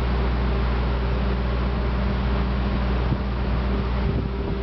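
Steady low mechanical hum of an unseen running machine such as an engine or generator, with an even hiss over it and a few faint knocks near the end.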